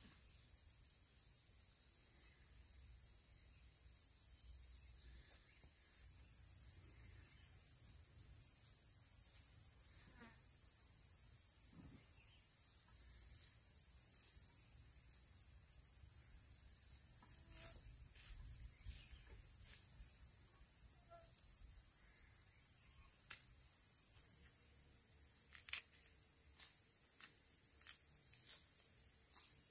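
Insects calling in rural surroundings. A steady high-pitched buzz comes in about six seconds in and stops about three-quarters of the way through, with short chirps before it and a few light clicks near the end.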